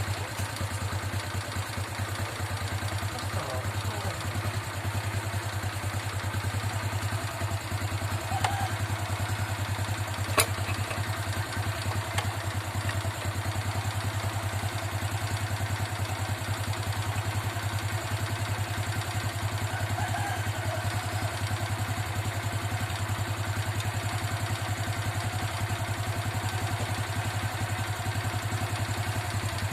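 Motorcycle engine idling steadily, with one sharp click about ten seconds in.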